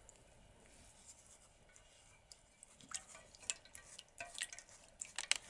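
Faint, sparse wet crackling and squishing of a doll's wet hair being worked by hand over a stainless steel basin. The sounds start about two seconds in, after near silence.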